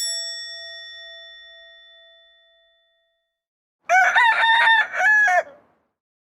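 A bell-like chime struck once and ringing away over about three seconds, then a rooster crowing once in a few rising and falling segments. Both are edited-in sound effects on a completely silent track.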